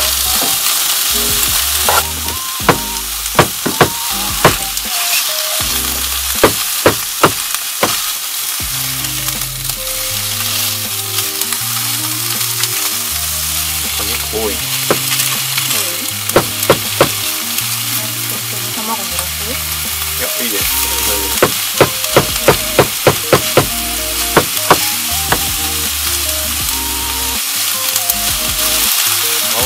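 Stir-fry ingredients sizzling in a frying pan, a continuous hiss that is heaviest at the start and near the end, with repeated sharp clicks of cooking utensils against the pan and bowl.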